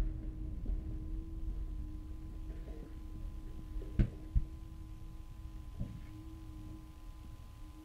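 Burning wreckage of the Morpheus test lander after its crash: a steady low rumble of fire, with sharp pops about four seconds in, again just after, and once more near six seconds, over a steady wavering hum.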